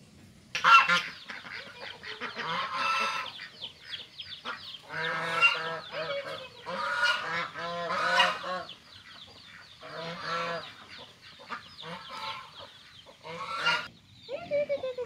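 A flock of domestic waterfowl calling, many overlapping calls that start about half a second in and come in repeated bouts.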